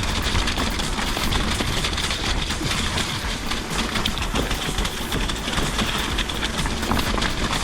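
Electric mountain bike descending a wet, rocky trail: a steady rumble of tyres over stones with a constant rapid clatter from the bike.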